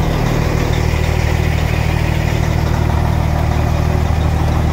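Detroit diesel engine of a long-hood Peterbilt semi truck idling steadily.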